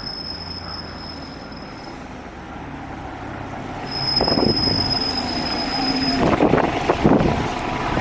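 A city shuttle bus approaching and pulling up at the stop, its engine and tyres growing louder from about halfway through. A steady high-pitched whine comes and goes over it.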